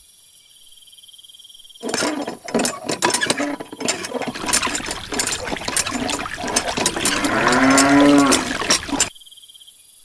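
A cow mooing once, a long call about seven seconds in, the loudest sound, over a dense crackling, clicking noise that starts abruptly about two seconds in and cuts off suddenly near the end.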